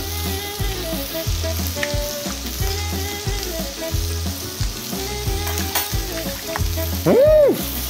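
Pork shoulder rack sizzling on an electric grill under background music with a steady low beat. Near the end a single loud tone rises and falls.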